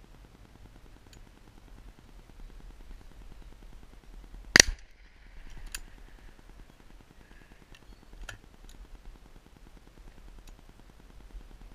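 A double-barrelled shotgun fires its first barrel at a long crossing pheasant: one loud shot about four and a half seconds in. A few much fainter sharp cracks follow over the next few seconds.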